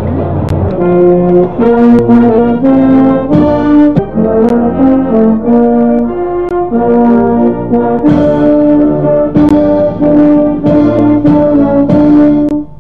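Brass band playing a slow melody in held, harmonised notes, the tune moving in steps. It breaks off suddenly near the end.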